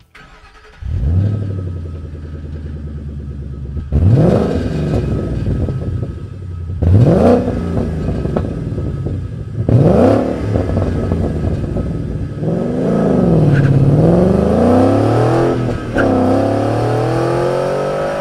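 2011–2014 Ford Mustang GT's 5.0 V8 through a Borla Touring exhaust: it starts up about a second in and settles into an idle, is blipped sharply three times, then revs down and up again and climbs steadily in pitch as the car accelerates away.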